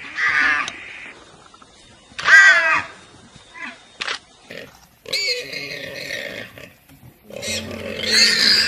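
Warthog squealing in distress while held by the throat by a leopard: a series of short, shrill squeals, the loudest about two and a half seconds in.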